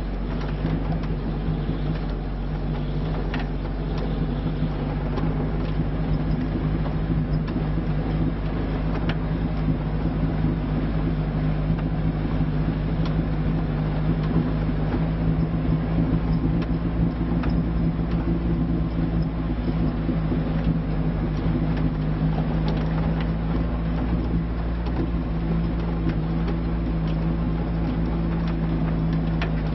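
Lada Niva's four-cylinder petrol engine running under load at steady revs as it climbs off-road, with scattered light clicks over it.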